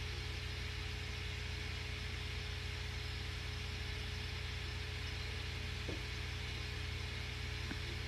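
Steady low hum with a faint constant tone and an even hiss, like a motor or appliance running; two faint clicks, one about six seconds in and one near the end.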